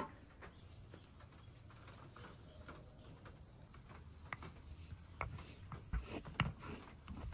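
Wooden pestle grinding saffron threads in a small stone mortar, with a handful of sharp knocks in the second half as it strikes the stone.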